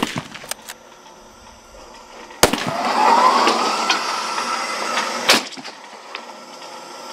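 A rifle shot right at the start. About two and a half seconds in comes a sharp crack, then the running boar target's motorised carriage runs along its metal rail with a rising whine for about three seconds, ending in a click.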